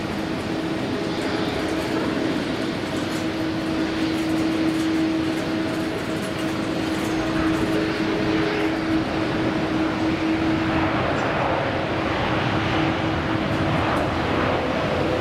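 Jet engine and airflow noise of a Boeing 787-9 Dreamliner landing and rolling out on the runway: a steady rush with a low hum, growing louder and brighter in the last few seconds.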